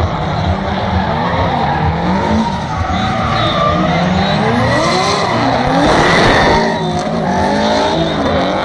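Two drift cars sliding in tandem, engines revving up and down and tyres squealing. It is loudest about six seconds in.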